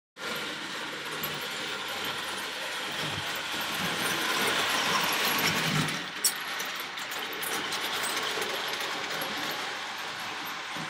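Prewar Lionel O gauge electric toy trains running on a three-rail metal track layout: a steady whirring of the motors and wheels on the rails. It swells a little in the middle, and there is a sharp click about six seconds in.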